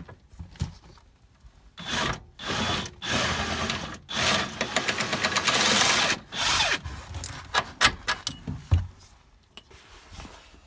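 Socket wrench on an extension undoing a lower suspension arm mounting bolt: several rough, rasping bursts of ratcheting and turning between about two and seven seconds in, then a few scattered clicks.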